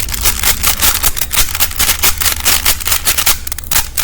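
Plastic layers of a Rubik's brand 3x3 cube, a model with no magnets, clicking and clacking as it is turned quickly in a rapid run of clicks.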